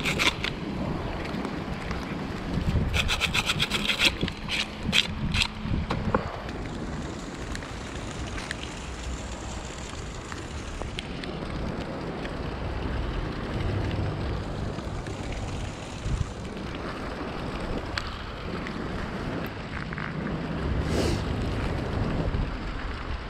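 Rapid metallic clicks and scrapes in the first few seconds as scrap is pulled and scraped off a neodymium fishing magnet over a bucket, a few single knocks following. After that, steady wind noise on the microphone.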